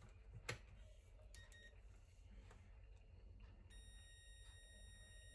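Faint multimeter continuity beep: a short blip about a second in, then a steady high beep from about two-thirds of the way through as the test probes sit on the tweeter's terminals. It signals a low-resistance path through the replacement diaphragm's voice coil, which reads about 8.6 ohms. A small click near the start.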